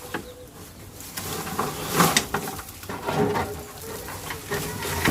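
Gloved hands pulling a sweet potato vine and its roots out of loose soil: irregular rustling and scraping, loudest about two seconds in.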